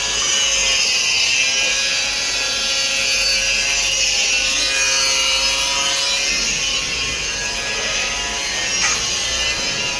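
Steady rasping noise of a tool cutting or rubbing material, like sawing, with a steady hum underneath.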